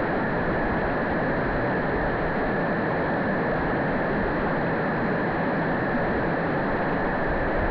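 Mountain stream running over rocks: a steady rush of flowing water with no change in level.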